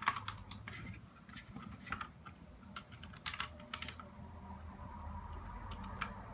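Irregular light clicks and taps of small parts being handled while the DVR module of an FPV headset is swapped, most of them in the first few seconds and fewer after.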